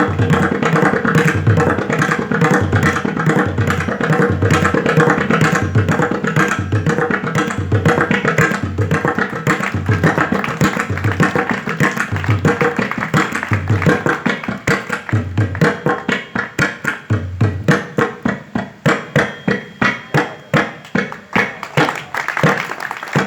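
Pakhawaj played to imitate a train pulling into a station and stopping: a dense run of fast strokes over a regular deep bass stroke. The bass stroke drops out about three quarters of the way through, and the playing breaks into separate, evenly spaced pulses toward the end.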